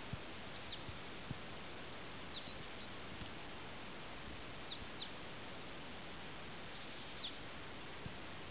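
Faint, steady outdoor background hiss, with a few brief high chirps and a few soft low knocks scattered through.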